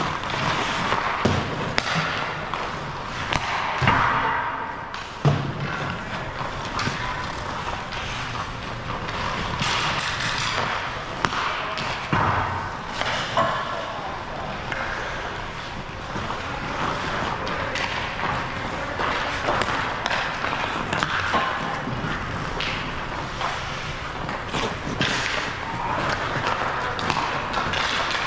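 Ice hockey play: skate blades scraping the ice, with repeated sharp knocks and thuds of pucks and sticks hitting each other and the boards.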